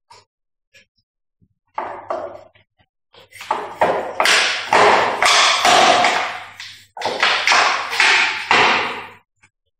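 Hand air pump worked in quick strokes, about two a second, each stroke a short hiss of air, pumping air into a PET bottle through a rubber tube. The pumping starts about two seconds in, after a few faint clicks.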